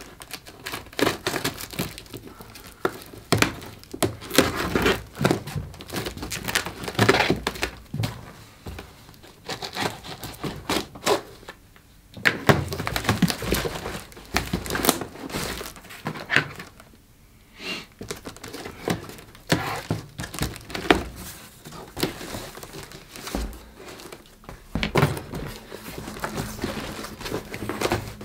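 Cardboard parcel being torn open by hand: packing tape and cardboard ripping and crinkling in irregular bursts, with dull thunks as the box and its flaps are handled, and a couple of short pauses.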